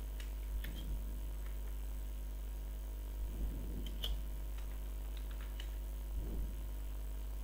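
A few scattered computer-keyboard key clicks over a steady low hum, with some soft low thuds in between.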